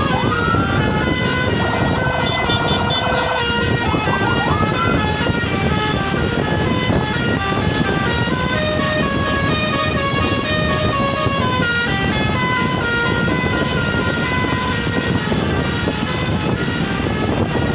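A bus's musical telolet air horn playing a tune of stepped notes, with a rising swoop near the start, over the steady rumble of engine and road noise.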